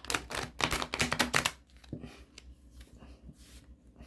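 A deck of new, stiff tarot cards being shuffled: a quick run of crisp card clicks for about a second and a half, then softer scattered handling of the cards.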